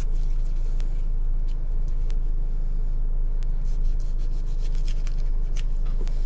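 A steady low hum, with faint scattered clicks and rubbing from a knife cutting through raw chicken.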